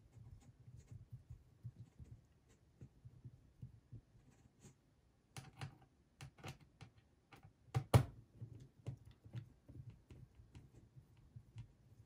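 Small screwdriver clicking and tapping on the bottom-cover screws of a Dell Latitude 7480 laptop as they are tightened, with a run of sharper ticks and one louder knock about eight seconds in.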